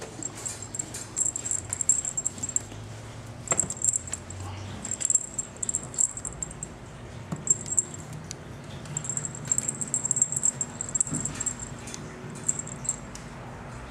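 A ragdoll kitten playing with a feather wand toy: clusters of quick, high rustles and scratches as it bats and grabs at the toy, with a few soft thumps.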